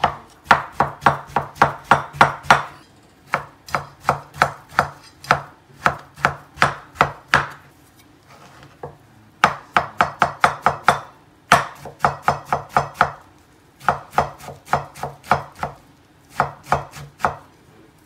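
Cleaver chopping taro on a wooden cutting board: runs of quick, sharp knocks at about four or five a second, broken by short pauses.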